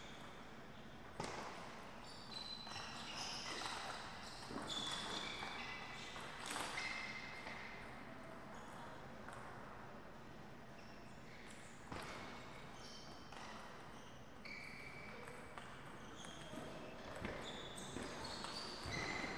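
Faint table tennis sounds between points: a few sharp clicks of the plastic ball bouncing and striking, the loudest about a second in, among short high squeaks of sports shoes on the court floor.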